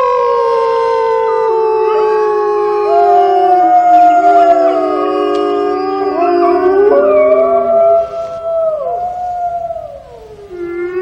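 A chorus of Arctic wolves howling: several long, overlapping howls at different pitches, each sliding down at its end, with a brief lull near the end.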